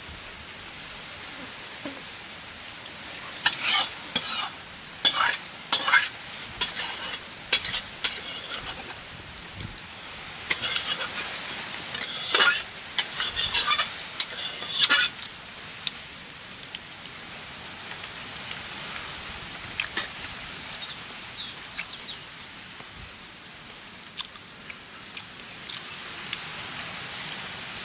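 Metal spoon stirring and scraping chicken curry in a steel kadhai: two runs of quick scrapes in the first half, over the steady sizzle of the curry cooking.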